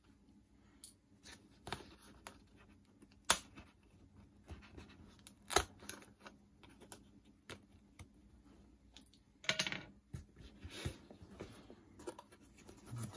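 Plastic trim clips and body pins being pried out of a Chevrolet Bolt EV rear seat back with a small hand tool: scattered sharp clicks and snaps, the loudest about three and five and a half seconds in. About nine and a half seconds in there is a short rough rustle as the seat fabric is pulled loose.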